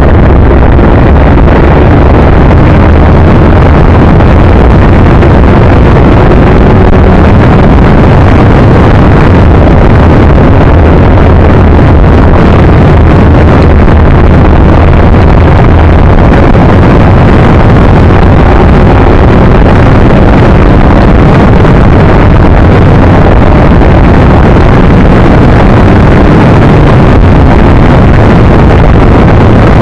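Motorcycle running at a steady speed under loud, steady wind noise on the microphone, with a low engine drone beneath the rush of air.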